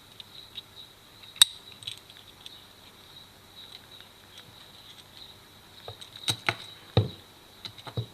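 Scattered sharp clicks and knocks of small hard objects being handled, the loudest about a second and a half in and a few more close together near the end, over a faint steady high-pitched tone.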